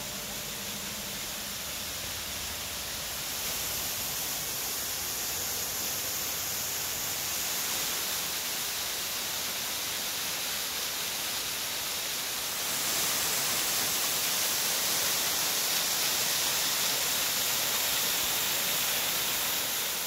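Small forest waterfall splashing down a rock face into a rocky stream: a steady rushing hiss that grows louder about 3 seconds in and again about 13 seconds in.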